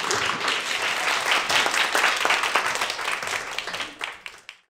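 Audience applauding: many hands clapping in a dense, steady patter that fades over the last second and then cuts off.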